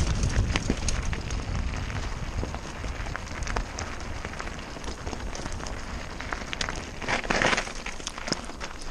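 Mountain bike tyres crunching and skittering over loose rocky gravel on a fast downhill, with many quick clicks and rattles from stones and the bike, over a low rumble of wind on the camera microphone. A louder rush of gravel noise comes about seven seconds in.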